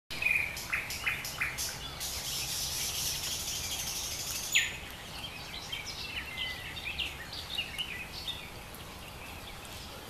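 Nightingale singing: short repeated notes, a high buzzing stretch, then a loud downward-sliding note about four and a half seconds in, followed by a run of quick varied notes.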